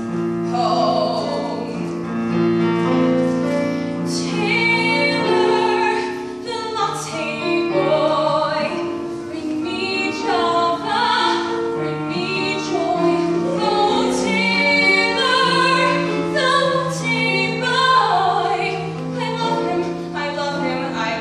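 A teenage girl singing a solo cabaret song over piano accompaniment.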